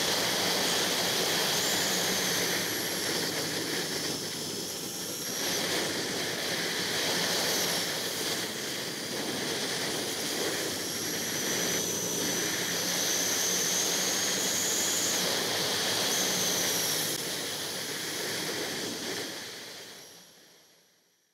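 Steady wind rush and road noise from a moving motorcycle, fading out near the end.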